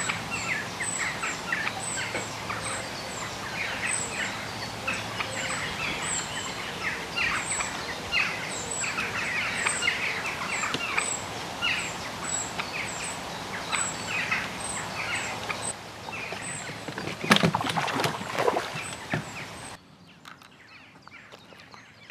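Small birds chattering in quick short chirps, with thin high squeaks repeating about twice a second. About seventeen seconds in, a burst of loud rustling and knocks breaks in, and near the end the sound drops suddenly to much quieter.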